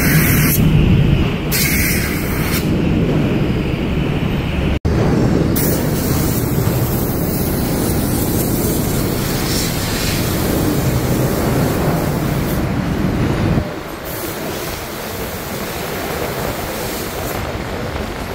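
Compressed-air spray gun hissing in on-and-off blasts as it sprays cleaner through an electric motor's stator windings to wash out gear oil, over a steady low machine rumble. The rumble drops away about three-quarters of the way through, leaving a fainter hiss.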